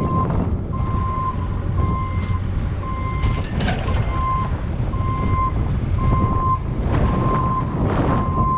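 Reverse alarm beeping steadily, about once a second, on a backhoe backing up, over the loud, steady running of its diesel engine.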